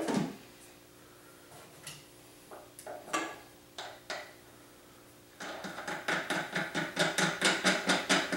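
Plastic lid being fitted and its knob screwed down on a vibratory tumbler bowl: scattered knocks and clicks, then from about five seconds in a fast, even run of clicks, about five a second.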